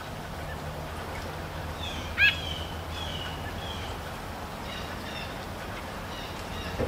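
Songbirds calling over a steady rain hiss: a few short down-slurred chirps, with one louder, harsher call about two seconds in.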